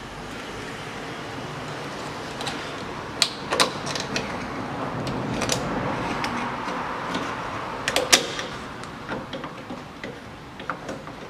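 Sharp metallic clicks and clinks from drum-brake parts and hand tools being handled: a couple about three seconds in and a louder pair about eight seconds in, over a rushing noise that swells in the middle.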